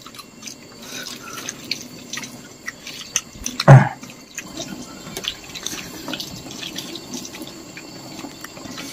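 Water running and dripping, with many small splashes and clicks, and one short voice sound a little under four seconds in.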